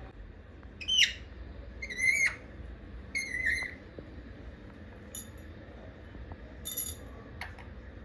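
Rose-ringed parakeet giving short, high calls: three about a second apart, then two more later, the last of them loud.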